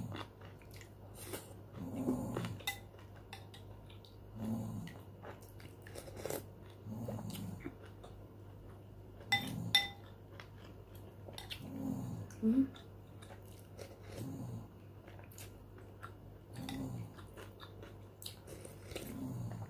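Eating sounds as broth is sipped from a metal spoon: short low mouth and swallowing sounds about every two seconds. A few sharp clinks of the spoon against the ceramic bowl come near the middle.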